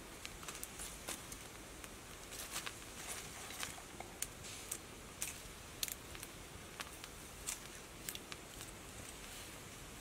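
Wood-ember cooking fire crackling under a roasting pig leg: irregular sharp pops and clicks, one or two a second, over a faint steady hiss.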